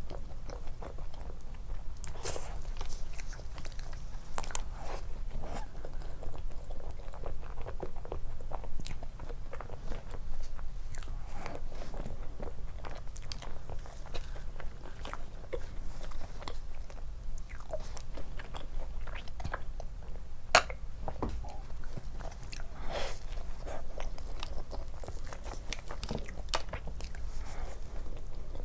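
Close-miked eating: a person biting and chewing soft food, with a steady run of small wet clicks and mouth sounds and one sharper click about twenty seconds in.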